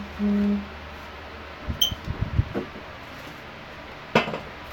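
A short, steady low tone at the start, then a cluster of soft knocks and thumps about two seconds in with a brief high beep among them, and one sharp click near the end.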